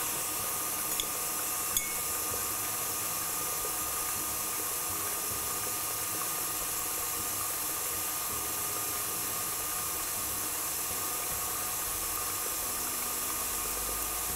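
Stand mixer running steadily at medium-high speed, its flat beater whipping cake batter, with a couple of light taps in the first two seconds as flour is sifted through a mesh sieve.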